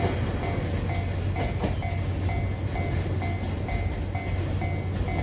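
Container freight wagons rolling past over a level crossing with a steady rumble and a couple of wheel clacks over rail joints about a second and a half in. The crossing's electronic warning bell rings on throughout, its short dings repeating a little under twice a second.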